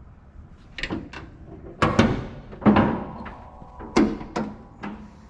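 A series of irregular knocks and clunks, about eight in five seconds, the loudest about two and three seconds in: a handheld camera being handled and bumped as it is worked into position around the truck.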